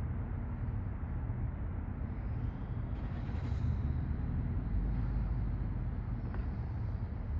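Steady low rumble of outdoor background noise, like distant traffic or heavy machinery, with a faint hiss higher up.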